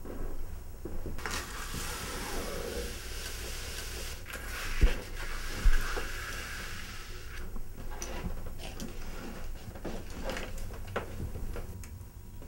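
Strokes rubbing and scraping across paper as a drawing is worked by brush and hand. Two sharp knocks about a second apart near the middle, with scattered light clicks around the rubbing.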